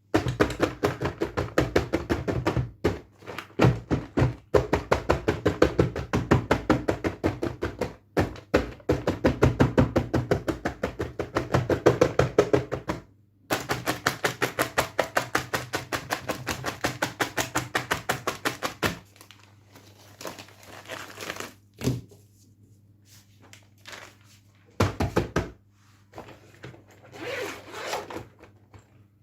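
Rapid tapping and knocking on toy packaging, several quick taps a second in long runs, with short breaks. About two-thirds of the way in it gives way to scattered, quieter knocks and crinkling of the packaging being handled.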